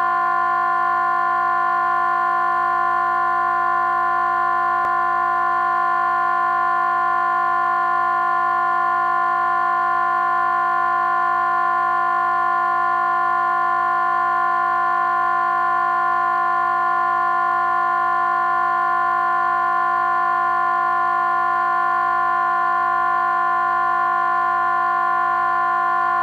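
Crowd noise run through a vocoder, turned into a steady synthetic chord on C that is held without change.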